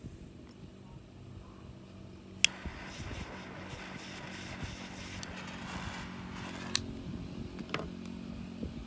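A lighter clicks, its flame hisses for about four seconds while a cigar is lit, then a second click ends the hiss. A steady low hum runs underneath.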